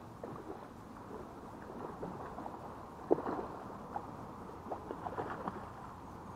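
Hooked rainbow trout splashing and thrashing at the water's surface while being played on a fly rod: irregular small splashes, with one sharper splash about three seconds in.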